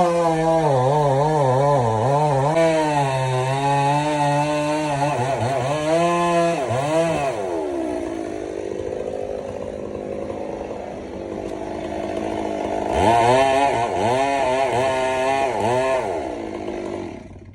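Stihl two-stroke chainsaw cutting tamarind wood, its engine pitch wavering up and down as the chain bogs under load and recovers. It eases off in the middle, runs hard again with the pitch wobbling, then cuts off suddenly near the end.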